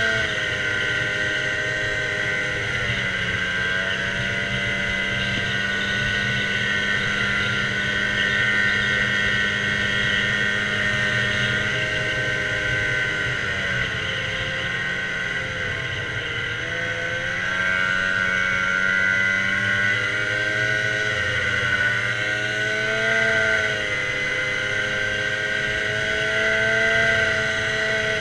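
Snowmobile engine running steadily while riding. Its pitch dips and recovers a few times, most clearly a drop about halfway through followed by a climb as it speeds up again.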